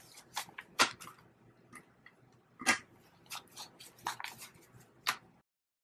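Paper dollar bills being counted by hand: a run of crisp snaps and rustles as notes are flicked over one by one, with louder snaps about a second in, near three seconds and near five seconds, cutting off just before the end.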